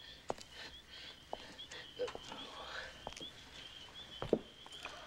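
Crickets chirping steadily at one high pitch, with scattered footsteps on a paved path; the sharpest step falls about four seconds in.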